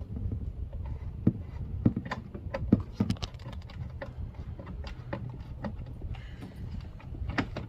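Irregular sharp clicks and knocks of hands and a screwdriver working on plastic center-console pieces and their screws, over a low steady hum.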